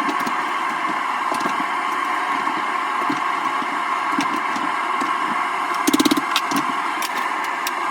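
Steady rushing noise of a running forge, with scattered sharp metal clicks and a quick rattle of several taps about six seconds in.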